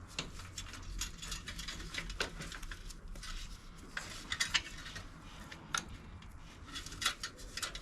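Small metal parts and tools being handled on a workbench: irregular light clicks and clinks of metal on metal.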